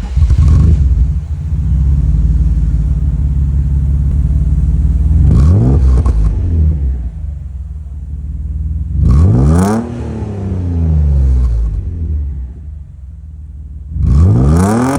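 Mercedes-Benz engine on its stock exhaust starting up and settling into a steady idle, then revved three times, each rev rising and falling back to idle.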